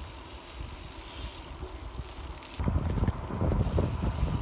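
Wind rumbling on the microphone of a camera carried on a moving bicycle, louder from about two and a half seconds in.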